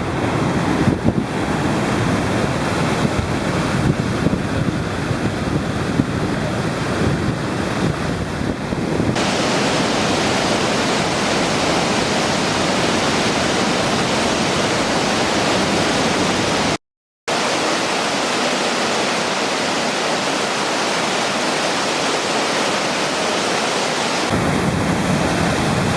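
Steady, loud rush of whitewater at a waterfall, with wind buffeting the microphone. The sound shifts abruptly twice and cuts out for a moment about two-thirds of the way through.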